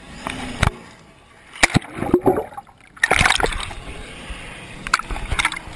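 Water splashing and sloshing at the lake's edge around a jet ski, broken by several sharp knocks and bumps.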